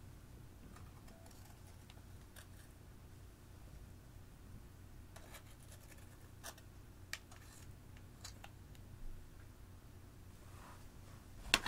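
Small spatula scraping and scratching pressed eyeshadow out of its compact, in scattered short scrapes and ticks, with a sharp click near the end.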